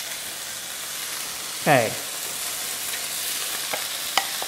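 Bacon sizzling in a hot frying pan: a steady hiss, with sharp pops of spitting fat in the second half.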